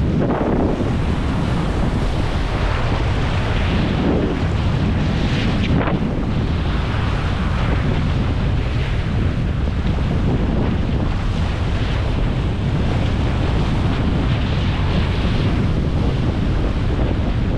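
Waves breaking and washing over black lava rocks at the water's edge, swelling in surges, with strong wind buffeting the microphone.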